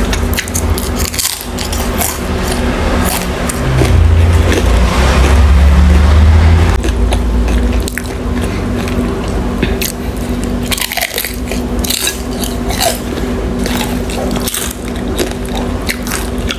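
Close-miked eating: biting into and chewing dim sum, with many small sharp mouth clicks and a loud low rumble from about 4 to 7 seconds in.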